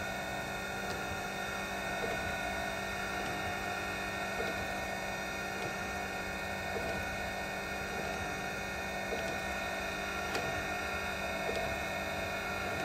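Bemato BMT-1545-AH surface grinder running, a steady machine hum with a whine, with faint light ticks about once a second.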